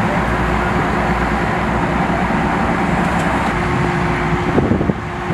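Steady motor-vehicle engine noise with a constant hum, with a few short knocks or voices near the end.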